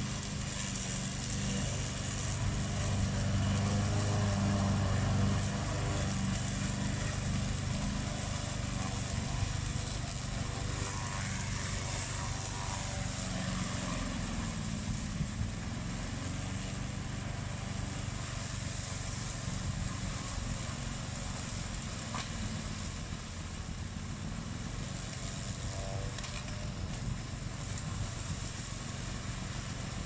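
Black Shark 800 remote-control tracked slope mower's 764 cc two-cylinder petrol engine running steadily as it mows along a stand of tall reeds. The engine note dips and rises briefly around halfway through, and the sound grows slowly fainter as the mower moves away.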